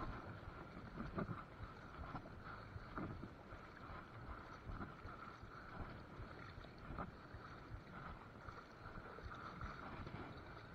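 Faint flowing river water, with light, irregular splashes and sloshes from wading through the current.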